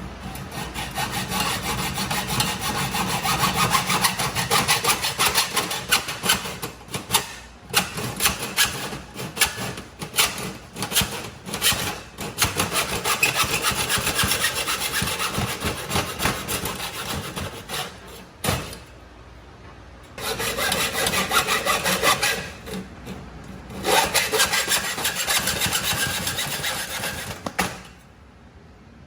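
A saw cutting through the back legs of an old ironing board, rasping in long runs of strokes. The sawing stops briefly about two-thirds of the way through and stops again near the end.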